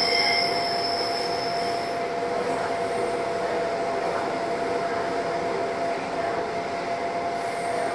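Seoul Metro Line 9 train running, heard from inside a passenger car: a steady rolling noise with a constant whine throughout. A high-pitched wheel squeal fades out within the first two seconds.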